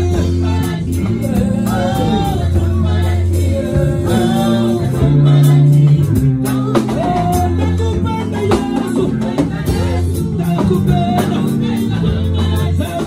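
Live gospel band: a group of singers over electric bass, guitar and drum kit, with held bass notes and a steady beat.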